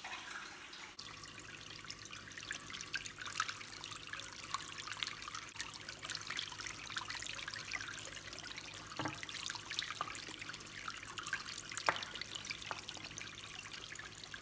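Small stone tabletop fountain running, with water trickling and dripping over a cluster of shells set on its spout. A faint low hum comes in about a second in, and there are a few sharper clicks.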